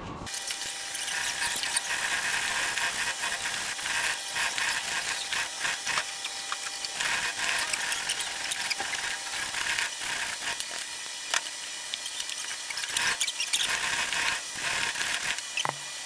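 Hand hacksaw sawing through a milled aluminium block clamped in a bench vise: repeated back-and-forth rasping strokes of the blade on metal.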